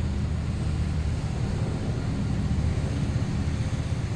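Steady low rumble of background noise, with no distinct knocks or clicks standing out.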